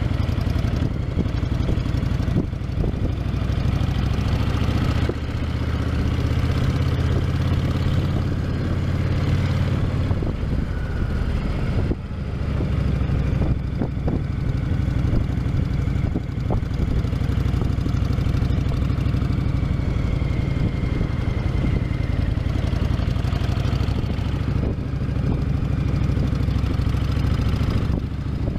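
Honda VTX 1300's V-twin engine running through its stock exhaust, mostly at a steady idle, with small shifts in engine note now and then.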